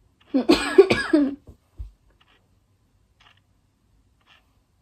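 A person's voice in a short outburst about a second long, near the start, then near-quiet with a few faint ticks.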